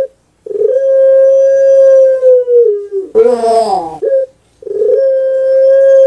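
Puter pelung, a domestic Barbary dove (Streptopelia risoria), singing its drawn-out coo. It holds one long steady note for about two seconds, drops in pitch into a rough, falling note and a short clipped note, pauses briefly, then starts another long held note near the end.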